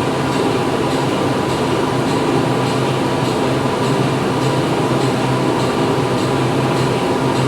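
Steady factory machinery running, a dense mechanical din with a continuous low hum and faint regular ticks about twice a second.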